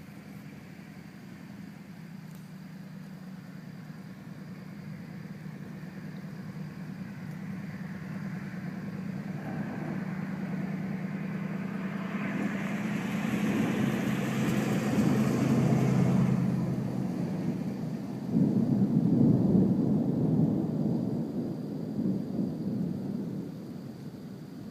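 Rolling thunder: a long rumble swells slowly and fades, then a second, louder rumble breaks in suddenly about three-quarters of the way through and dies away.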